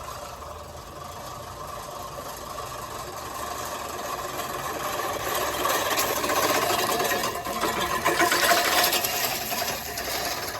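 Manual push reel lawn mower cutting grass, its spinning reel blades making a steady whirring rattle against the bed knife that grows louder toward the middle and later part. This loud, annoying noise is normal: it shows the reel is set tight against the blade.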